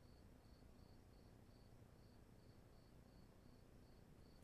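Near silence: room tone with a faint, high chirp repeating evenly about two and a half times a second.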